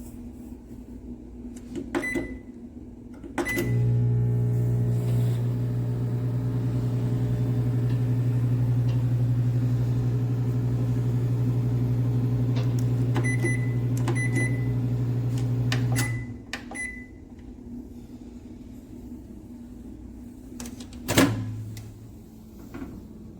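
Galanz retro microwave oven: keypad beeps, then the oven runs with a steady low hum for about twelve seconds and stops, with more beeps near the end of the run. A single loud clunk comes a few seconds after it stops.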